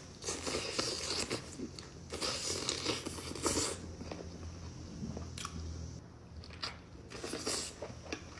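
A person eating seafood boil, biting and chewing with crunching, in three bursts of a second or so each.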